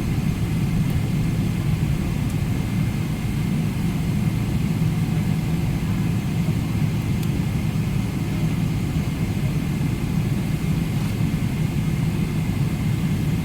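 Steady cabin noise inside a Boeing 777-300ER on the ground, its GE90-115B engines at low thrust: an even low drone with a faint steady whine above it.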